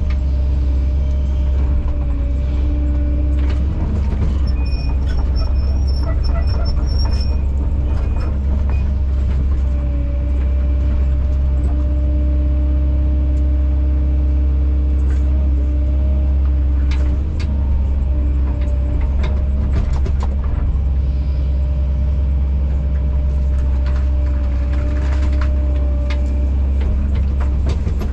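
Kobelco SK210 excavator's diesel engine and hydraulics running under load, a steady low drone with a whine that steps up and down in pitch as the controls are worked. Scattered knocks come in the second half.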